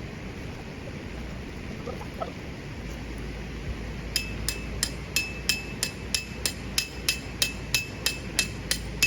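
A hammer driving metal tent pegs into the ground: sharp ringing metal-on-metal strikes, about three a second, starting about four seconds in over a steady background rush.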